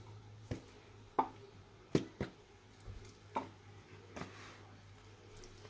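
Pieces of raw bone-in meat being dropped one by one into a plastic bowl, landing as about six soft thuds over four seconds.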